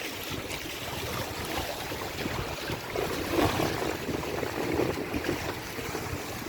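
Water rushing and splashing along the hulls of a small sailing trimaran under way, with wind on the microphone. The splashing grows louder about halfway through.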